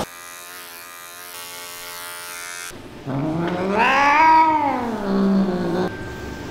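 Persian cat giving one long, drawn-out meow about three seconds in, rising then falling in pitch, after a quieter steady hum.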